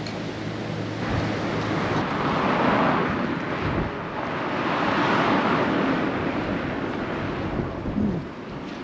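Wind and surf at a harbour: a broad rushing noise that swells and eases twice, with the wind buffeting the microphone.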